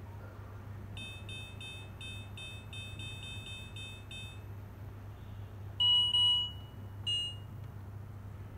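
Touch-panel 0-10V LED dimmer beeping as its keys are pressed: a run of about a dozen quick short beeps, three or four a second, then after a pause one longer, louder beep and a short one, each beep confirming a key press as the light is stepped up or down. A steady low hum runs underneath.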